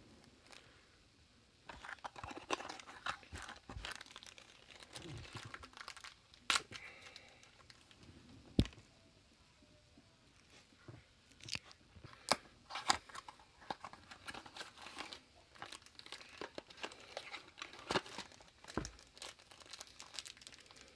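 Hands tearing open a small blind-box pin package and crinkling its wrapping: irregular crackles and tearing with scattered sharp clicks.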